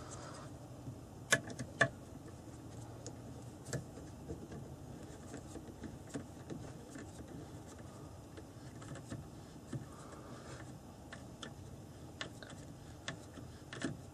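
Screws being driven by hand with a screwdriver through a butt pad into a rifle stock: faint scattered ticks and creaks, with two sharp clicks between one and two seconds in and another near four seconds.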